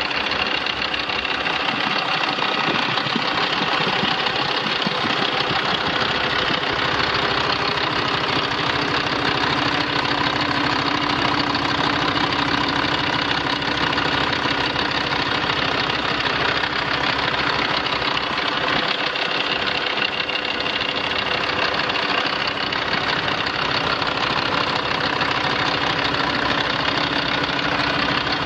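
The 2007 Mack CHN613 semi truck's 12.0-litre six-cylinder Mack diesel engine idling steadily.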